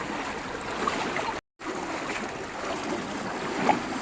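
Steady rush of a fast-flowing mountain stream, breaking off to silence for a moment about one and a half seconds in.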